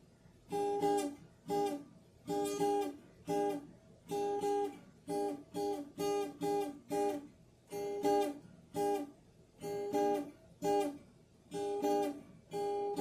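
Guitar strummed in short, choppy chords, about one or two strums a second, each chord cut off quickly before the next.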